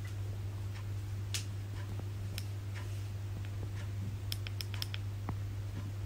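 Quiet room with a steady low hum and scattered small clicks and ticks, including a quick run of several ticks about four and a half seconds in.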